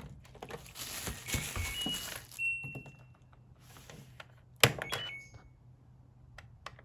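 Washing machine control-panel beeps as buttons are pressed, after some rustling handling. About halfway through there is a sharp thunk, followed by more short beeps.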